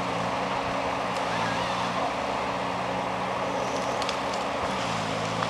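Ponsse forest harvester's diesel engine running steadily, with its hydraulics under load as the boom-mounted harvester head works a tree. A few short sharp cracks come about four seconds in.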